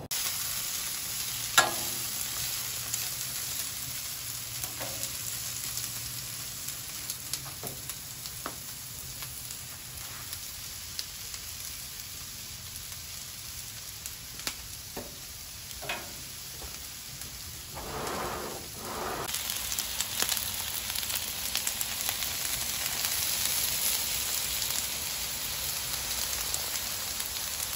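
Broccoli and asparagus sizzling on a Blackstone propane flat-top griddle, the sizzle growing louder about two-thirds of the way through. A few sharp clicks and short scrapes of the spatula against the griddle come now and then.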